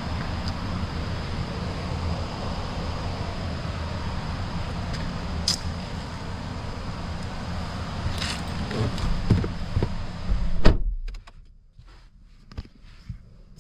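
Starter motor cranking a VW Golf 2.0 TDI diesel engine, which keeps turning over without catching, a sign of its no-start fault; the cranking grows louder near the end, then stops abruptly about eleven seconds in, followed by a few light clicks.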